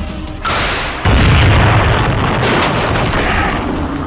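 Action sound effect: a sudden loud boom about a second in, with a deep, noisy rumble that carries on for about three seconds.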